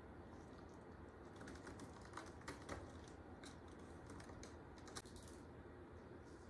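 Faint, scattered light scratches and clicks of kittens' claws gripping a sisal scratching post.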